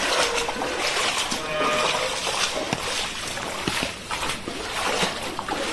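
Shallow floodwater on a paved lane splashing and dripping, with many small scattered ticks of drips and splashes.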